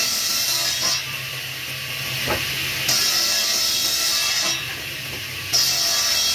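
Shop-built table saw's circular blade spinning with a steady hum and cutting into a solid wood block in three passes, each a second or two long, the blade running on with no load between them.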